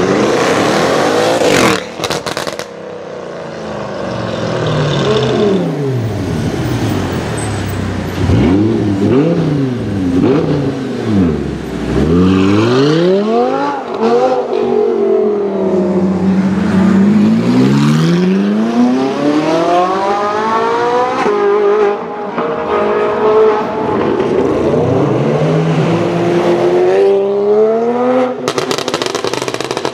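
Several high-performance car engines revving and accelerating hard, the exhaust note climbing and falling in pitch again and again as the cars pull away and pass. Near the end, a rapid crackle sets in.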